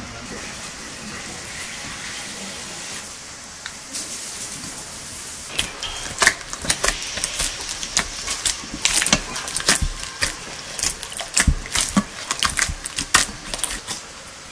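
Hands mixing and kneading bread dough in an enamel bowl: irregular slaps and clicks of dough and fingers against the bowl, starting about five seconds in over steady background noise.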